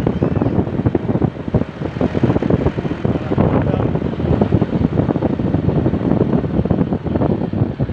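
Wind buffeting the microphone over a steady rumble of vehicle and road noise on the move.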